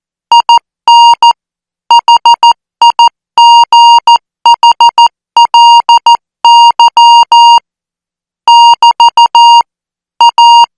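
Morse code practice sent at 14 words per minute as a keyed single-pitch beep. Short dots and longer dashes run in character groups, with one longer gap about three-quarters of the way through.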